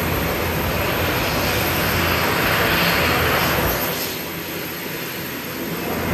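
Aircraft engine noise at an airport apron: a broad rushing that swells to its loudest about three seconds in, then drops away sharply about four seconds in.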